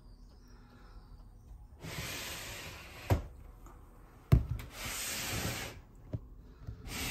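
Three bursts of rubbing or scraping, each about a second long, with two sharp knocks between them; the second knock, about four seconds in, is the loudest.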